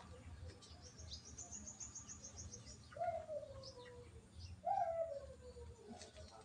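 Birds at a pigeon loft: a small bird's rapid high trill, then two louder, drawn-out falling calls, the pigeon coos.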